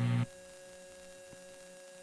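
Steady buzzing hum from a weather-radio broadcast feed. It cuts off abruptly a moment in and leaves a faint steady hum with static.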